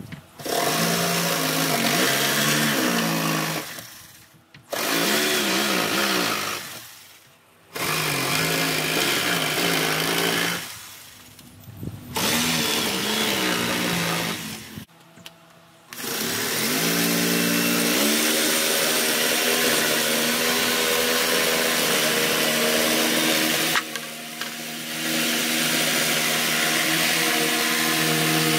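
Black+Decker corded jigsaw cutting plywood: four short cuts, each starting with a rising whine as the motor spins up and stopping after a few seconds, then one long continuous cut along the profile from about halfway on, easing briefly near the end.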